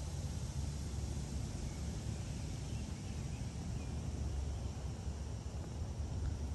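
Outdoor background: a steady low rumble, with a few faint chirps near the middle.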